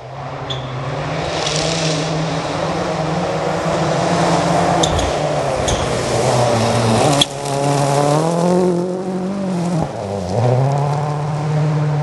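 Ford Focus WRC rally car driven hard on a gravel stage, approaching and passing: its engine note climbs and dips through gear changes and lifts, with a few sharp cracks, the loudest about seven seconds in.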